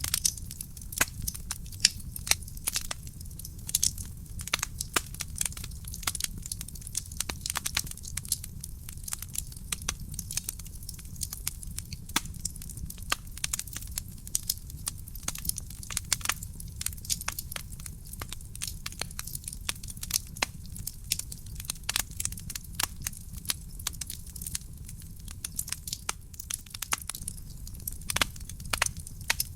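Wood fire burning in a fireplace: a dense, irregular crackle of sharp pops and snaps over a steady low rumble of the flames.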